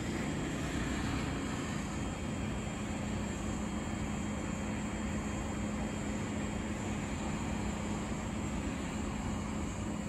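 A train running steadily: a constant rumble with a low, steady hum.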